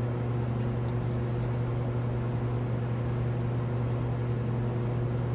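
A steady electric hum over a constant hiss, with engine oil streaming from the oil pan's drain into a plastic bucket hung beneath the car.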